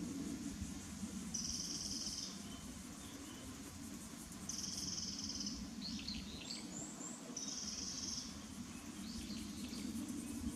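A songbird repeats a short, flat, high trill three times, about three seconds apart, which the uploader tentatively takes for a Japanese robin. Brief chirps from another bird come between the trills.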